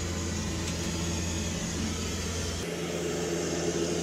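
Steady cabin drone of a Dash 8-400 turboprop's engines and propellers, heard from inside the aircraft's lavatory. The low hum shifts about two-thirds of the way through, its deepest part dropping away as a higher steady tone comes in.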